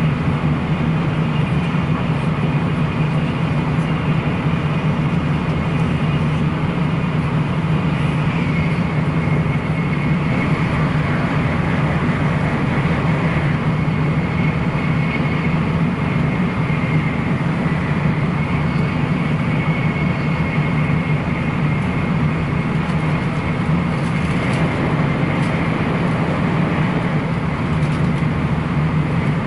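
Shinkansen bullet train running at speed, heard from inside the passenger car: a steady, unbroken low rumble of running noise with a faint high whine over it.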